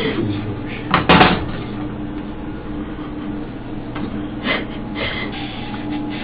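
Electric hair clippers humming steadily as they shave a head down to the scalp. A brief louder noise cuts in about a second in.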